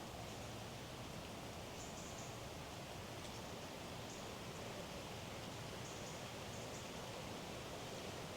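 Woodland ambience: a steady, even hiss of outdoor background noise with a few faint, short, high bird chirps scattered through it.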